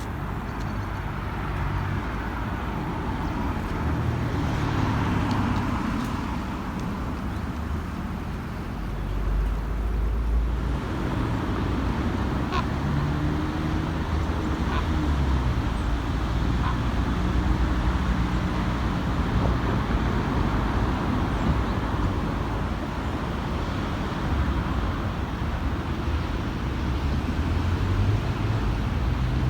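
Car driving, with a steady low engine and road rumble.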